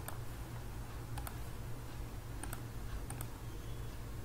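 A few sparse, sharp clicks of a computer mouse, about five in all, as a circle is drawn and dimensioned in CAD software, over a steady low electrical hum.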